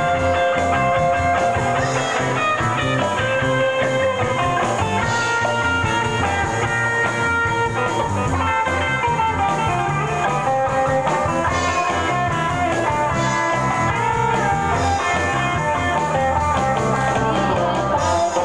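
Live band playing an instrumental passage led by electric guitar, over bass and drum kit.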